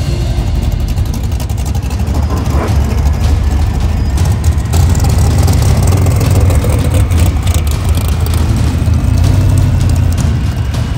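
Drag-race car engines running loud, a deep steady rumble. A faint whine rises slowly in pitch through the second half.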